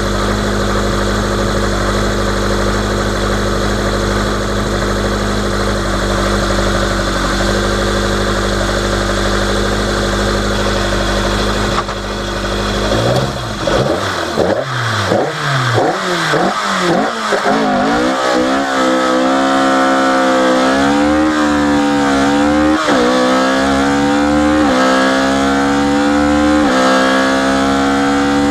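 Opel Kadett C Coupé rally car's engine idling steadily. About halfway through it is blipped rapidly up and down several times in first gear. It then pulls away at full throttle, its pitch climbing and dropping sharply at each upshift, roughly every two seconds.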